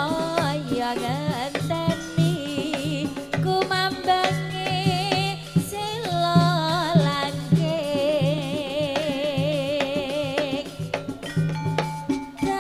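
Female vocalist singing a Javanese campursari langgam song with a wide vibrato, accompanied by the band with drums keeping a steady beat, all amplified through a stage sound system.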